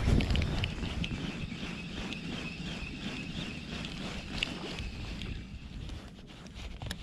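Spinning reel cranked steadily while retrieving a jig: a faint, even whine with regular ticking, after a loud knock at the start.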